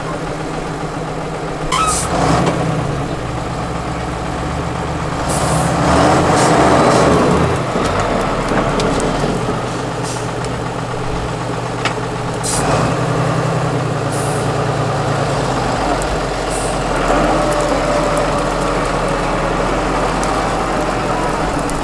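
Tatra 8x8 trial truck's diesel engine running under load as the truck crawls over a steep ditch bank, revving up and easing off several times, loudest a few seconds in. Short sharp air hisses break in half a dozen times, typical of the air brakes being applied and released.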